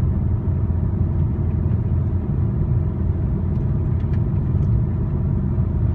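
Car cruising at a steady speed, heard from inside the cabin: an even low rumble of engine and tyre noise with no change in pace.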